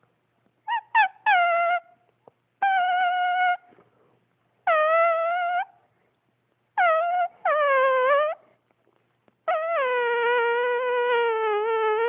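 Cat yowling: a string of drawn-out, level-pitched calls about a second each with short silences between, then a longer held call near the end.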